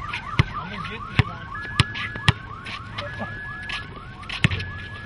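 Ordinary car alarm sounding, repeating rising whoops about four times a second with steady beeps laid over them at intervals; it is the kind of alarm that nobody pays attention to. A few sharp knocks sound through it.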